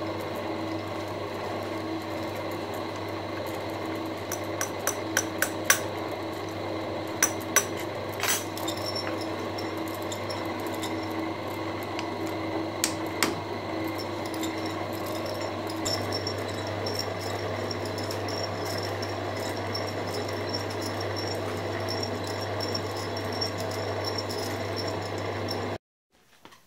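Milling machine spindle running steadily with a coaxial indicator in it, and sharp taps of a mallet on the workpiece as it is knocked into centre on the rotary table: a cluster of taps about five to eight seconds in and two more around thirteen seconds. The running sound stops abruptly near the end.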